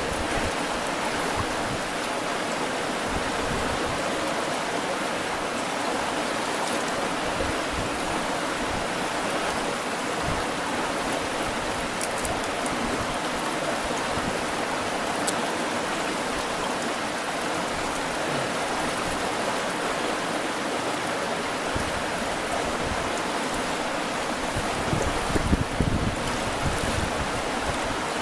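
Steady rush of river water, with a few brief low bumps near the end.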